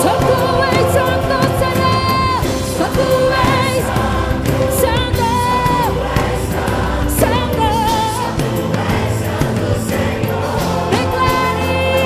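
Live gospel worship song: singers hold long notes with vibrato over a full band.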